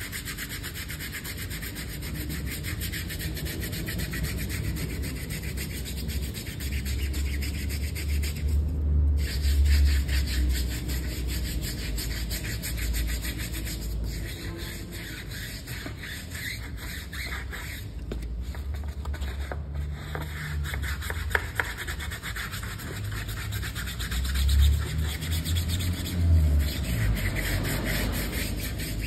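Detailing brush scrubbing a soap-foamed car tyre and wheel in rapid back-and-forth strokes.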